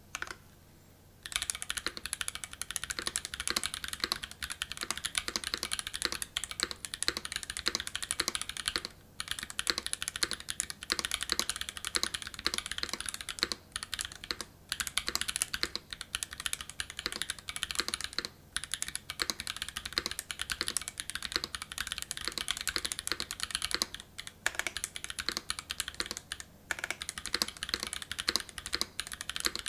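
Fast typing on a custom mechanical keyboard with lubed Haimu x Geon White switches in a stainless steel plate and GMK keycaps. It is a continuous run of rapid keystroke clacks that starts about a second in and is broken only by a few short pauses.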